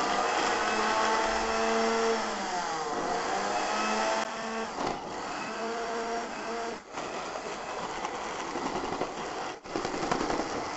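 Electric countertop blender motor running on a jar of dry, waterless onion, tomato, ginger and garlic chunks, its pitch dipping and rising again about two seconds in and cutting out briefly a few times. The chunks are not catching well, and they then need pushing with a knife to blend.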